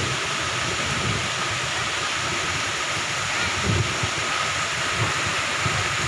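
Moderate to heavy rain falling in a steady hiss, with uneven low rumbling underneath.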